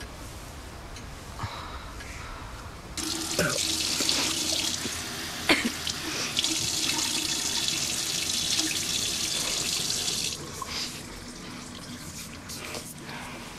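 Running water that starts suddenly about three seconds in and stops suddenly about seven seconds later, with a couple of sharp knocks while it runs.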